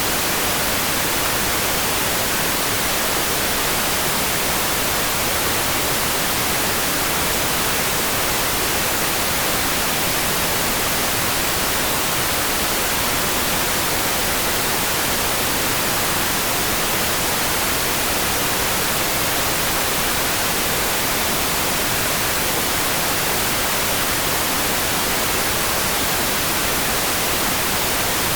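Steady rain sound for sleep: an even, unbroken hiss, strongest in the highs, with no separate drops, thunder or other events.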